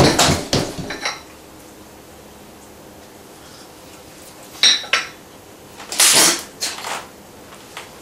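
China teacup and dishes clattering on a table at first, then one sharp ringing clink of the cup on its saucer near the middle. A brief loud rush of noise comes about six seconds in.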